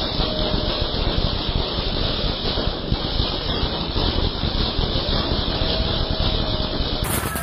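Ground fountain firework spraying sparks with a loud, steady hiss.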